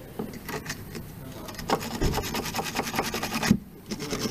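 Rapid back-and-forth scraping of a metal hand tool on the rusty brake pipe union at the flexible brake hose, cleaning rust and grime off the fitting before it is undone. The strokes come thickest in the middle, stop for a moment and start again near the end.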